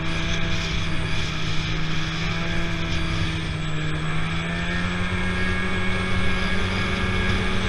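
Snowmobile engine running at a steady cruising speed under the rider, over a rush of wind and track noise; its pitch creeps up a little in the second half.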